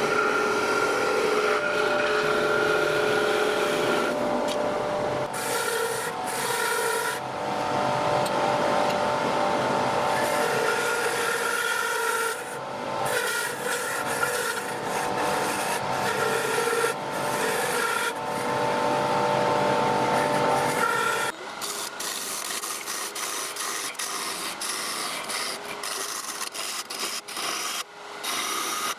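Yew spinning on a wood lathe with a tool rubbing and scraping against the turning wood, with a few steady tones running through the noise. About three quarters of the way through it drops to a quieter, thinner hiss broken by short ticks.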